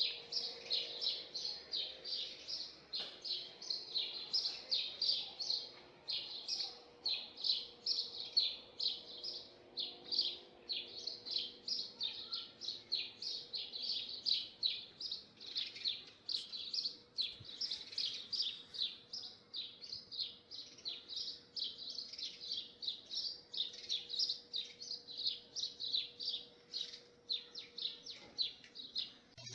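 A bird chirping over and over, short high-pitched notes at about three or four a second without a break.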